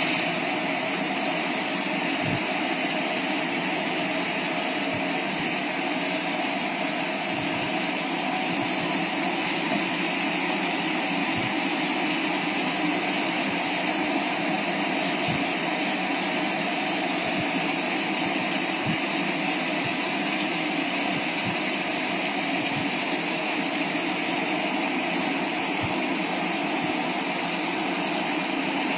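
Steady heavy rainfall, an even hiss with a few scattered low thumps.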